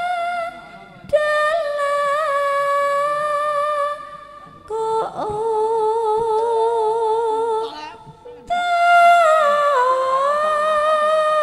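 Sinden, a female Javanese gamelan singer, singing long held high notes with a wavering vibrato, in phrases of about three seconds with short breaks between them. The last phrase slides down in pitch.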